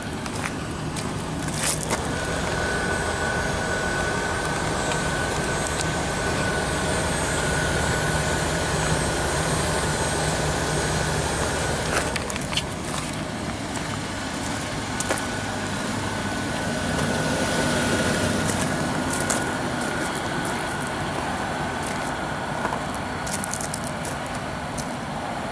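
A motor vehicle's engine idling steadily, with a low hum that eases about halfway through and a thin steady whine above it. A few light clicks and crunches come through now and then.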